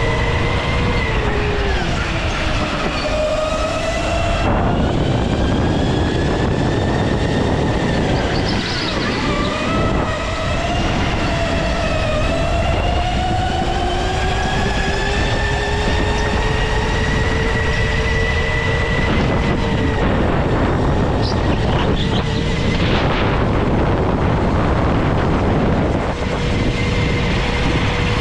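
Go-kart running at speed, heard from the driver's seat: its motor whine glides down and up as the kart slows for corners and accelerates out of them, with one long rise through the middle, over steady road and wind noise.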